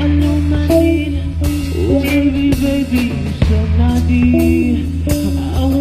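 A song with electric guitar, bass and a drum kit playing a steady beat, with some singing.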